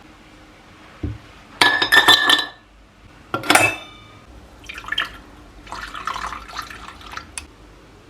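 Glassware and dishes being handled: a dull knock, then two loud clattering clinks with a ringing tone, followed by a run of lighter clinks and rattles.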